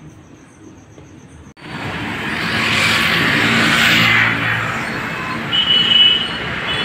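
Street traffic noise that starts suddenly after a second and a half of quiet. A vehicle passes, swelling and fading, and a few short high-pitched beeps come near the end.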